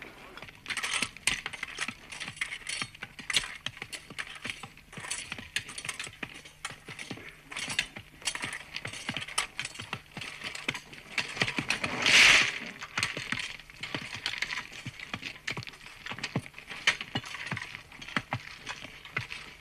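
Irregular metallic clinks and knocks of hand tools striking a railway track under repair. About twelve seconds in there is one short, louder rush of noise.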